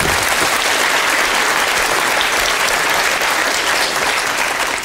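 Large audience applauding steadily, beginning to die away near the end.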